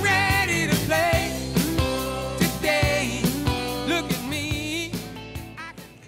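Background song with a singing voice over a band, fading out near the end.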